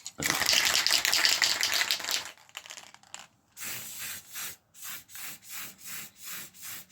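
Aerosol can of cheap black gloss spray paint spraying for about two seconds with an uneven, spitting hiss, a poor spray blamed on the cheap paint. After a short pause the can is shaken, a regular swishing rattle about twice a second.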